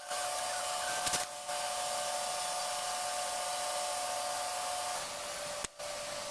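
Steady mechanical whirring hiss with a constant hum, like a small electric motor or fan running, which drops slightly in pitch about five seconds in and is broken by a couple of short dropouts.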